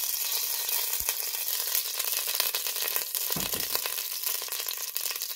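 Cooking oil sizzling and crackling steadily in a hot stainless steel pot, just after it has been poured in.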